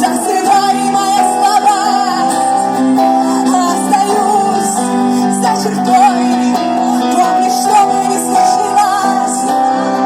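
Live band playing a pop song, with a female voice singing a wavering melody over guitar and sustained chords.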